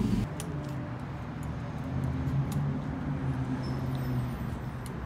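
A vehicle engine idling with a steady low hum, with a few faint clicks over it.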